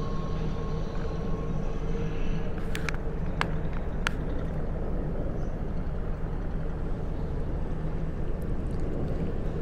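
Steady low rumble and hum of the AIDAcosma cruise ship's machinery as the ship pulls away from the quay, with a few faint sharp clicks about three to four seconds in.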